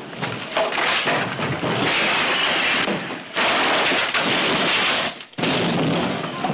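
A heavy safe dragged by a horse team, scraping and rumbling across wooden floorboards and the porch, in three long stretches with two short breaks.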